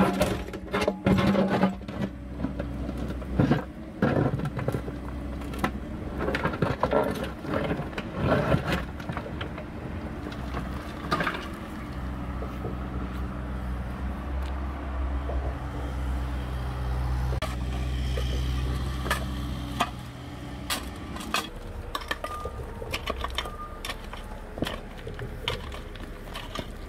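Excavator engine running under load while its bucket scrapes and knocks through soil and stones, with many sharp knocks in the first half. The engine grows louder and steadier for several seconds in the middle.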